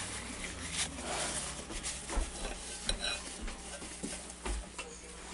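Quiet rustling and a few light clicks from hands handling a paper tissue over a glass mixing bowl of slime.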